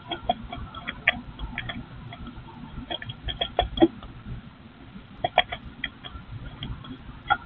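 Bluebirds moving in the nest cup of a nest box: scattered short clicks and faint squeaks, coming in clusters about a second, three to four seconds, and five seconds in.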